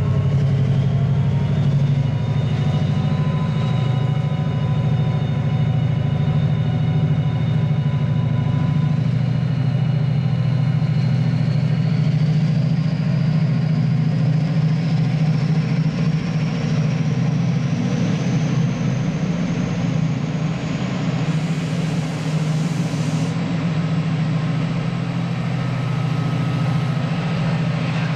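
Diesel train running with a steady low engine note and a whine that climbs slowly in pitch over about twenty seconds as it gathers speed. About three-quarters of the way through there is a brief hiss.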